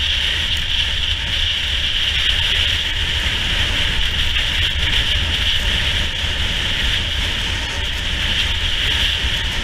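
Skis sliding and scraping over groomed snow, a steady hiss, with wind buffeting the camera microphone as a low rumble.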